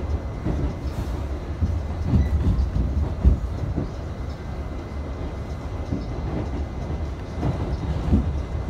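Inside an R68A subway car running at speed: a steady low rumble of the wheels on the rails, with irregular clacks and knocks as the wheels pass over rail joints.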